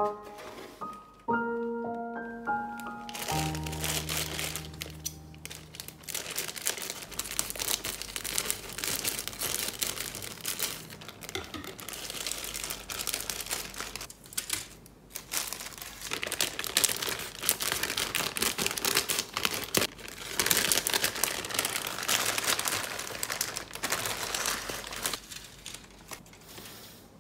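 A few notes of background music at the start, then crinkling and rustling from clear plastic bags as plastic model-kit sprues are handled and taken out of them.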